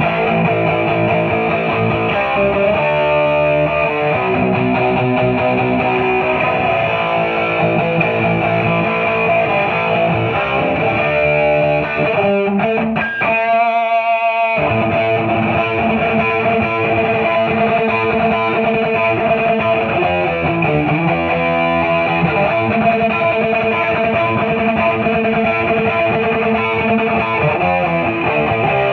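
Gibson Les Paul Studio electric guitar played through a Marshall DSL40C amp driven by a Boss SD-1 overdrive, giving a distorted rock tone. About halfway through, the low end drops out for a moment while a single high note rings with a wavering vibrato.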